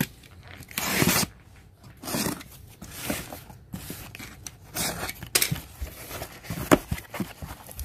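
Box cutter slitting the packing tape on a cardboard shipping box and the cardboard flaps being pulled open: a series of short scraping and rustling sounds with a couple of sharp clicks.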